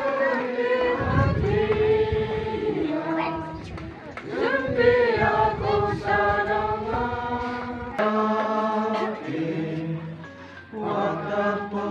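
A congregation singing together in long held notes, with phrase breaks about four seconds in and again near the end. A low rumble runs under the singing from about one to four seconds in.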